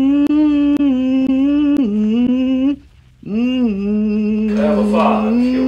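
A wordless voice holding long, slightly wavering notes, with a short break for breath about three seconds in. Soft ticks about twice a second sound through the first two seconds.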